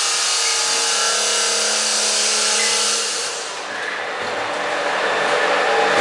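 Automatic wall plastering machine running: a steady motor hum with a strong hiss. About three seconds in the sound dips briefly and turns lower and rougher.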